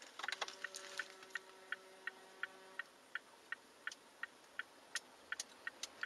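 Car's turn-signal flasher relay clicking steadily in the cabin of the stopped car, about three clicks a second. A faint steady tone sounds for the first two seconds or so.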